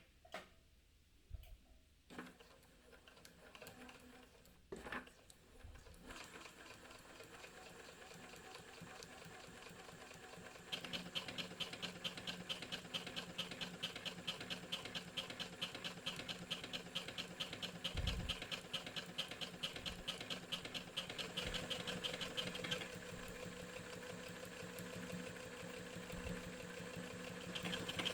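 Elna Excellence 720Pro computerized sewing machine sewing an automatic square buttonhole. After a few clicks, the motor runs in a fast, even stitching rhythm, and the sound shifts in tone about two-thirds of the way through as the machine works through the buttonhole.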